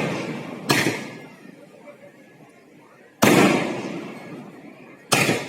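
Fireworks bursting: three loud, sharp bangs about a second, three seconds and five seconds in, each trailing off in a long rumbling echo, with the tail of a bang from just before still dying away at the start.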